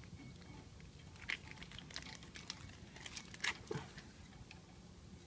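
Scattered light metallic clicks and scrapes as a brake caliper piston wind-back tool is fitted and worked against a rear brake caliper. The clicks are bunched about one to four seconds in, the sharpest a little past the middle.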